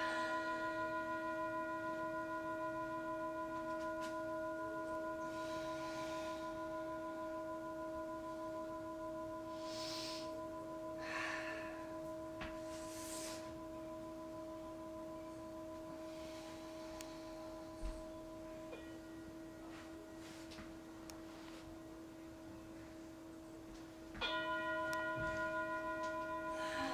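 Meditation music: a struck singing-bowl-like bell tone rings on with several steady overtones, slowly fading, and is struck again about 24 seconds in.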